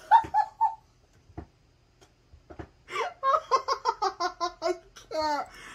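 Laughter: a few short giggles at the start, a pause, then a longer run of rapid, repeated ha-ha pulses from about three seconds in.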